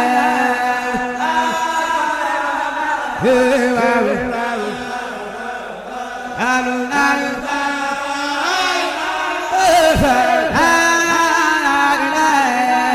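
Background music of a solo voice chanting a melody, with pitch that slides and wavers from note to note.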